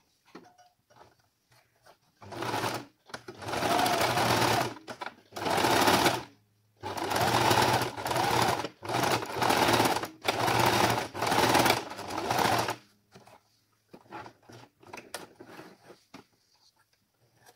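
Electric sewing machine stitching in about seven short runs with brief stops between them, sewing back and forth over a mask's elastic ear loop to fix it firmly. Light handling clicks before and after the stitching.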